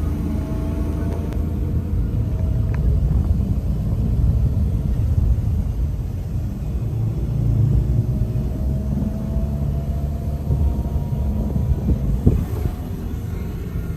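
Vehicle on the move: a steady low engine and road rumble, with the engine note slowly rising in the middle. A brief knock comes about 12 seconds in.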